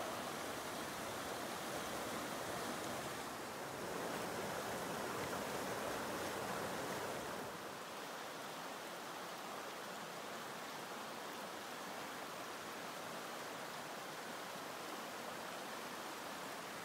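Chattooga River water rushing steadily over rocks and shallow shoals, a little quieter from about halfway through.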